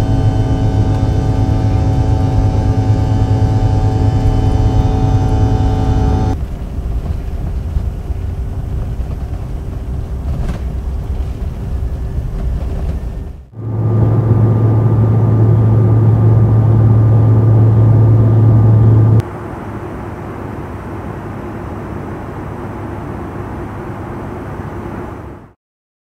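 Rear-mounted General Electric CF34 turbofans of a CRJ700 heard inside the cabin. It opens with loud takeoff-roll noise near the engines in the rear cabin: many steady whining tones over a low hum. About six seconds in it cuts to a much quieter, even rush of cabin noise, the forward-cabin level. About fourteen seconds in comes a loud, steady cruise drone with a strong low hum from the rear cabin, which cuts to a quieter forward-cabin rush about five seconds later.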